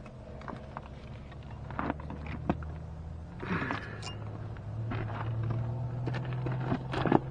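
Scattered light clicks and taps of gloved hands and tools working at a GY6 scooter engine's piston, fighting a stubborn wrist pin, over a steady low hum that gets a little louder about halfway.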